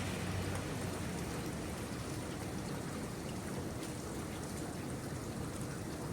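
Steady rain falling: an even hiss with faint scattered drop ticks. A low rumble fades out in the first second.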